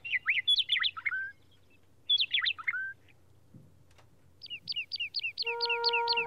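Bird-call imitation of a white-rumped sandpiper: two short bursts of quick, high, falling chirps, then a fast even run of repeated chirps, about five a second, from about four and a half seconds in. Soft music chords come in near the end.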